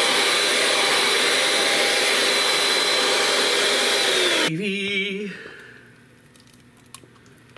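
Handheld electric mixer running steadily while whisking flour and cornstarch into simmering gravy to thicken it, then switched off about four and a half seconds in, its pitch sliding down as the motor stops.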